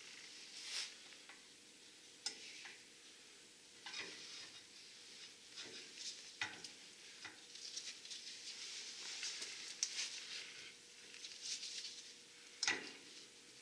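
Faint hand work on brake hardware: irregular small clicks and scratchy rustling, with a few sharper clicks, the loudest near the end.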